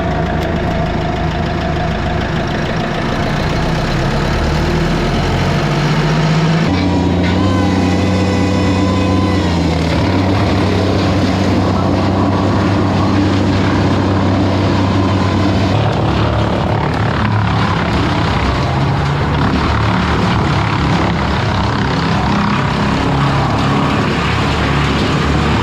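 Mini skid steer's engine running, climbing in speed a few seconds in and then stepping between different engine speeds several times as it works.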